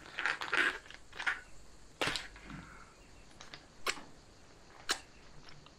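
Freeze-dried meal pouch crinkling and tearing as its bottom corners are ripped open, followed by a few sharp snaps: one about two seconds in, then two more a second apart near the end.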